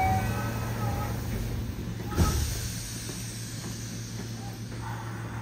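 Inside a Yokohama Municipal Subway 4000 series car: a steady low hum, with short electronic chime tones in the first second. About two seconds in comes a thump with a hiss of air, and a brighter whine sets in near the end.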